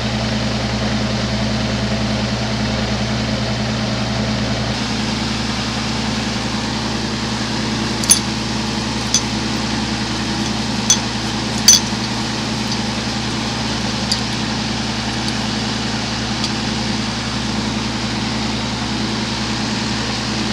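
A steady mechanical hum with a low drone. A few short, sharp glass clinks fall between about 8 and 14 seconds in, as glass is handled during glass blowing.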